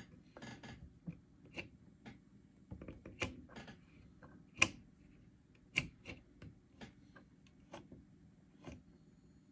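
Irregular clicks and snaps of the front-panel knobs and rotary selector switches of a 1955 DeVry wideband oscilloscope being turned, the two loudest about halfway through, over a faint steady low hum.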